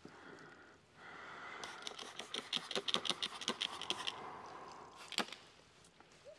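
Slip solution being sprayed from a hand spray bottle onto wet paint protection film: a quick run of short spritzing hisses over about three seconds, with one more sharp spritz near the end.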